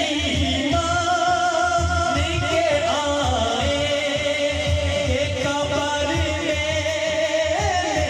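A male naat reciter sings a devotional naat into a microphone, amplified over the hall's sound system. He holds long, wavering melismatic notes that glide between pitches.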